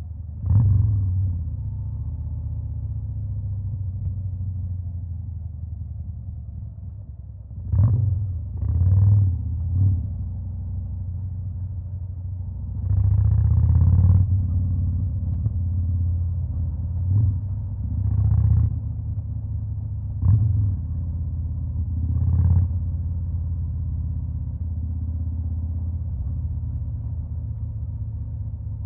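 Stage 2-tuned V-twin engine of a 2021 Harley-Davidson Fat Boy idling with a deep, steady rumble, blipped on the throttle about eight times: short revs about a second in and at intervals through the middle, with one longer rev around halfway, then settling back to idle near the end.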